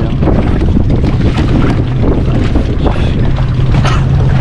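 Speedboat engine running steadily under heavy wind buffeting on the microphone.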